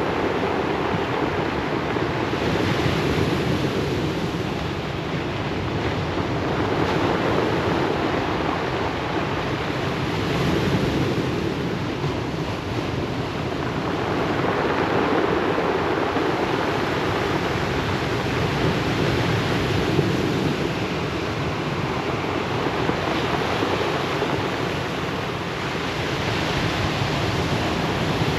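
Ocean waves breaking and washing over a pebble beach, a continuous surf rush that swells and eases every few seconds, with wind on the microphone.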